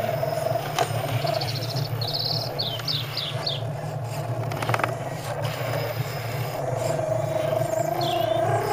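Electric motor and gears of a radio-controlled scale crawler truck whining as it creeps along. The whine eases off for a few seconds in the middle and picks up again near the end. A songbird chirps a quick series of notes between about one and three seconds in, and again briefly near the end.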